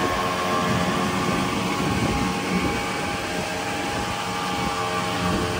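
Boat motor running steadily at cruising speed, a constant engine hum over the rush of water and wind as the hull moves.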